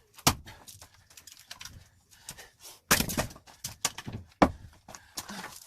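Axe blows on hard firewood: a few sharp knocks with smaller clicks and taps of wood between them, the loudest about a third of a second in, around the three-second mark and about four and a half seconds in.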